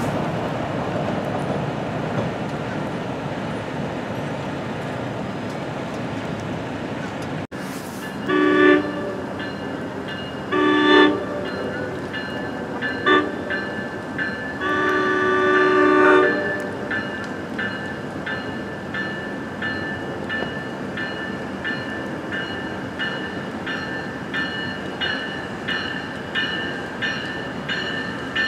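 Rumble of a passing train, then an approaching NJ Transit train sounds its horn in the grade-crossing pattern: long, long, short, then a longer blast. Its bell then rings steadily, about one and a half strokes a second.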